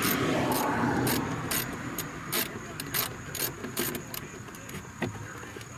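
Ratchet wrench clicking in short strokes on the 8mm bolt at the bottom of a Honda Civic door panel, about three clicks a second, stopping about four seconds in. A steady high insect trill sounds behind it.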